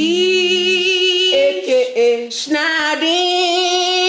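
A woman singing long held notes with vibrato, unaccompanied, as a sung announcement of a product.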